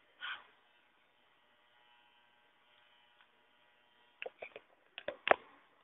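Faint steady electrical hum, with a brief noise just after the start and a handful of short sharp clicks and knocks near the end.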